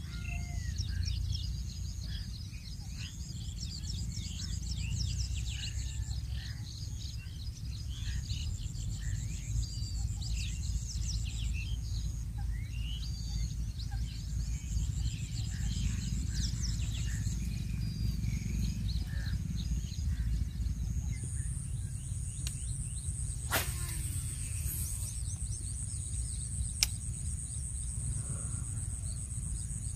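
Outdoor ambience of many small birds chirping over a steady low rumble. The chirping thins out in the second half, where a steady high whine comes in, and there are two sharp clicks near the end.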